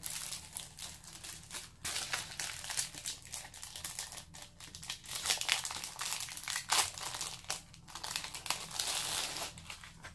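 Clear plastic packaging crinkling and crackling as a strip of rhinestone mesh is handled and slid out of it, in irregular rustles with sharp crackles.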